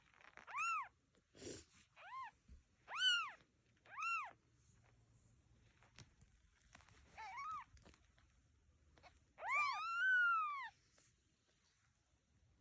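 Kittens mewing: about seven short, high-pitched calls that rise and fall in pitch, with a quiet pause in the middle and two calls overlapping near the end.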